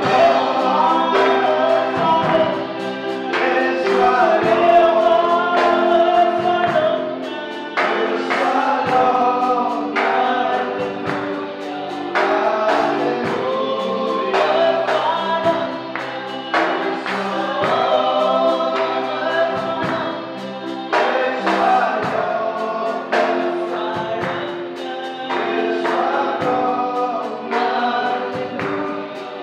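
Live gospel worship song: several voices singing together into microphones over sustained keyboard chords, with a drum kit keeping time.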